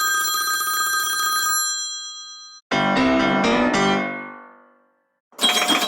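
Short iPhone XR tones played one after another with brief silences between them. The first is a chime whose steady ringing tones fade out over the first two seconds. About three seconds in comes a quick run of piano-like notes, and near the end another bright tone of several notes begins.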